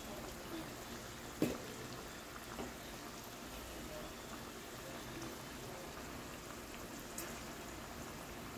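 Potato fries deep-frying in hot canola oil: a steady, low sizzle of bubbling oil, with a light knock about a second and a half in.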